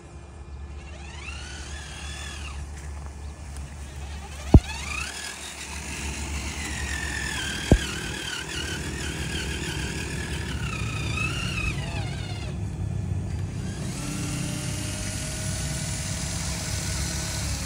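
Radio-controlled toy dump truck's electric drive whining, its pitch rising, wavering and falling with the throttle over a steady low hum, with two sharp knocks. Near the end a steady motor tone runs as the dump bed tips up.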